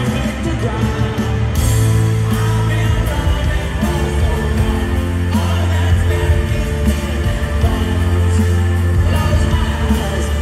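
Rock band playing live, with singing over strummed acoustic guitar and a steady bass line.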